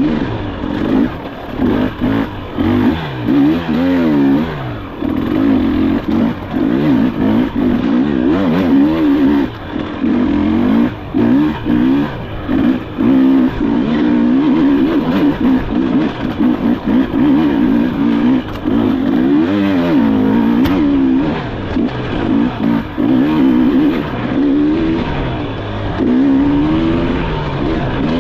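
Enduro dirt bike engine under hard riding, its note rising and falling continuously as the throttle is worked, with many brief drops where the throttle is chopped.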